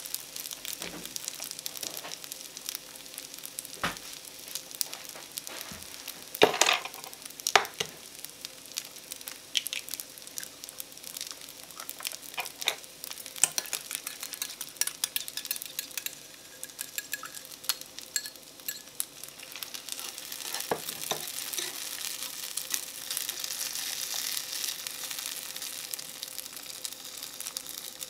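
Rice and butter sizzling steadily in a small nonstick frying pan on a portable butane stove. A couple of sharp knocks about six to eight seconds in as an egg is cracked, then chopsticks clicking against a bowl while the egg is beaten. The sizzle grows louder near the end as the beaten egg goes into the pan and is stirred through the rice.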